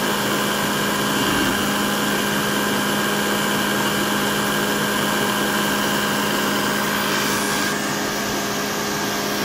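Electric jug blender running steadily, its motor humming as it blends a watermelon and milk smoothie, with a slight change in its sound near the end.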